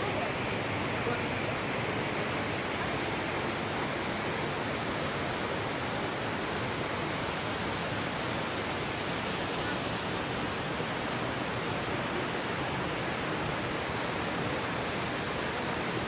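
Steady roar of Dassam Falls: an even, unbroken rushing of falling water.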